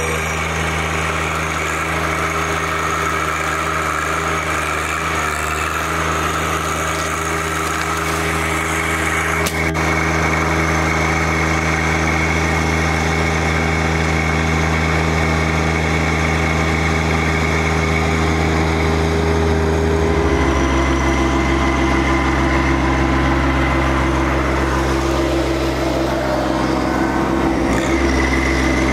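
Small compact tractor's engine running steadily; its note changes about two-thirds of the way through.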